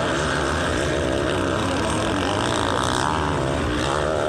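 Several motocross bikes' engines revving at once, their pitches rising and falling as the riders work the throttles around the dirt track.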